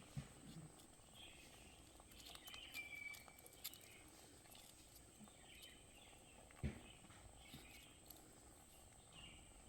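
Near silence: faint outdoor ambience with a few soft, short high chirps scattered through it and a single low thump about two-thirds of the way in.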